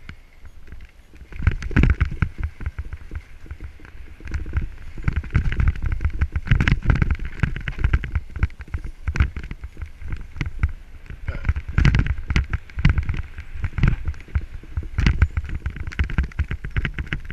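Mountain bike descending rough dirt singletrack, heard from a helmet-mounted camera: tyres rolling and crunching over dirt and roots under a steady rumble, with the bike rattling and knocking hard over bumps at irregular moments.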